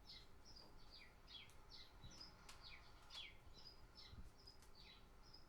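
Faint chirping, like a small bird: short calls, each falling quickly in pitch, repeated about two or three times a second.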